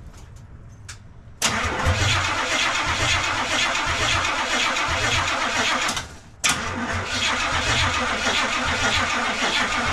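Starter cranking a rebuilt Chevrolet 305 small-block V8 in two attempts of about four to five seconds each, with a rhythmic pulse and no firing. The engine won't start because the ignition gives no spark, which the owner puts down either to the new distributor or to a reassembly mistake.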